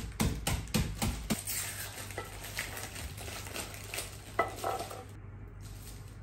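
Kitchenware clatter: a quick run of knocks and clinks in the first second or so, then a wooden spoon scraping soft, soggy cooked rice out of a glass dish into a pot, with a couple of light knocks about four and a half seconds in.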